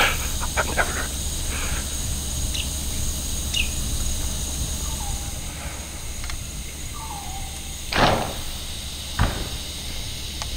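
Evening insects trilling steadily, with a few short bird chirps and calls. About eight seconds in comes a short, loud, rushing burst, then a single sharp click about a second later.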